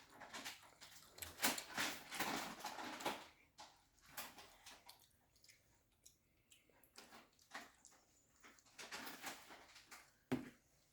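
Faint, irregular clicks, rustles and short noisy bursts of handling and eating as a hot sauce is served and tasted.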